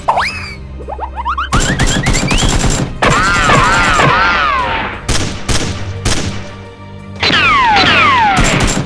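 Added sound effects of rapid gunfire bursts, several times, mixed with sliding whistle-like effects that rise and fall in pitch over background music.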